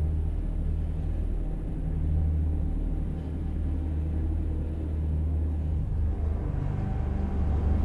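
Lamborghini Sián's naturally aspirated V12 idling with a steady, deep rumble; the note shifts slightly near the end.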